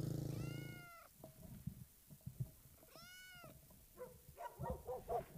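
A cat meowing twice, about two and a half seconds apart, each meow rising and then falling in pitch. A steady low hum fades away during the first second.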